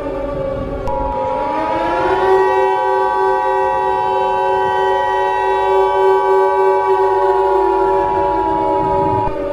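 Emergency Alert System two-tone attention signal, a pair of steady tones starting about a second in and holding for about eight seconds. Under it, a civil defense siren winds up in pitch, holds, and winds down near the end.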